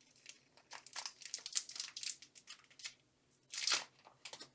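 Foil Pokémon booster pack wrapper being crinkled and torn open by hand: a run of crackling rustles, then one louder rip near the end.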